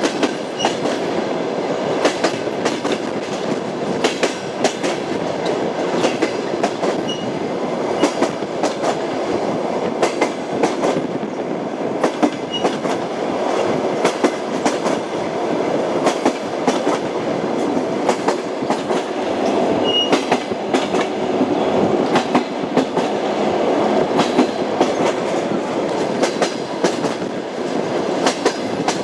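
Train wheels clattering over rail joints with a steady rolling rumble, with sharp clacks coming irregularly throughout. A few faint, brief high squeaks are heard now and then.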